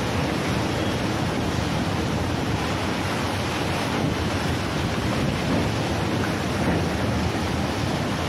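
Steady rush of wind on the microphone and sea surf churning below, with a low rumble underneath, heard from a train window over open water.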